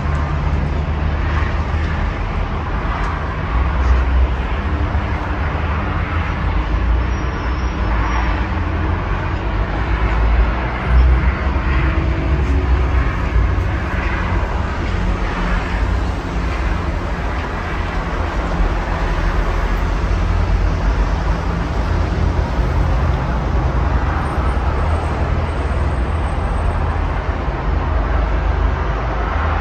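Distant road traffic from a highway below a high balcony: a steady low rumble of passing cars and trucks, with gentle swells as vehicles go by.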